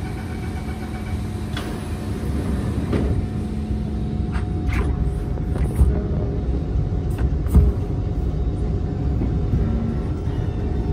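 Kawasaki C151 MRT train heard from on board: a steady low rumble under a constant electric hum, with a few sharp knocks, the loudest two near the middle, and the level creeping up.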